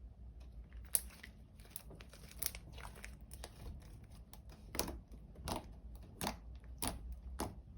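Hands kneading and stretching homemade glue slime, giving irregular sticky clicks and crackles, with four louder pops in the second half.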